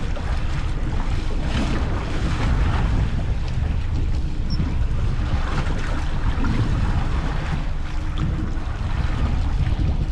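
Wind rumbling on the microphone over the steady wash of the sea around a small fishing boat at sea.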